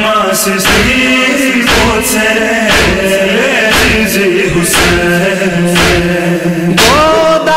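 Noha, a chanted mourning lament in Balti, sung by male voices over a steady heavy beat about once a second and a low held tone.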